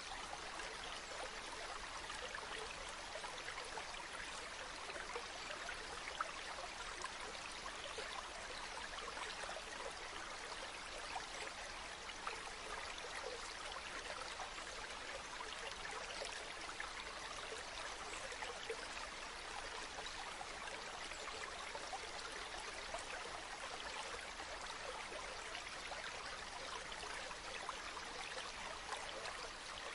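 Mountain river flowing, a steady bubbling rush of water.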